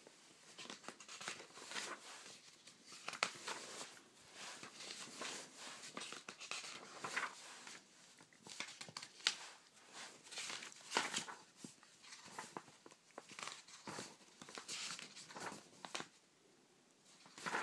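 Magazine pages being turned and brushed by hand close to the microphone: an irregular run of papery swishes and crinkles, with a few sharper rustles.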